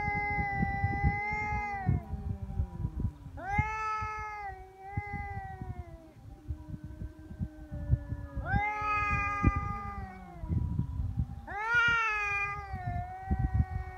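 Stray cats caterwauling in a threat stand-off: about four long, drawn-out yowls, each rising sharply at the start and then sliding slowly down in pitch, with a low rumble underneath.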